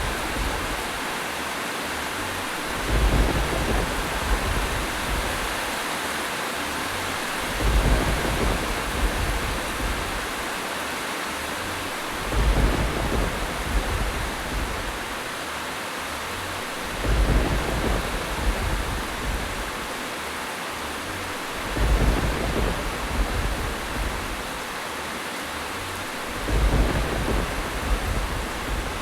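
Steady rain falling as an even hiss, with a low rumble swelling up six times at even spacing, about every five seconds.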